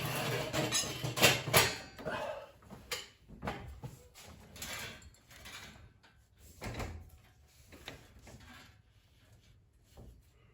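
Metal garage-door hardware being handled while the lift cable is threaded by the spring: a string of clinks, knocks and rattles, busiest in the first couple of seconds and then sparser.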